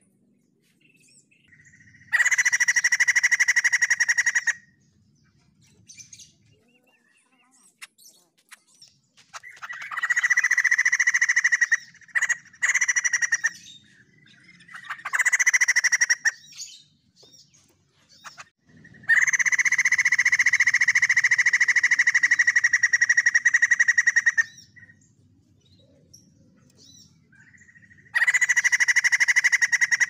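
White-crested laughingthrush giving loud rapid rattling calls in five long bursts, the longest about five seconds, with a few short faint calls in between.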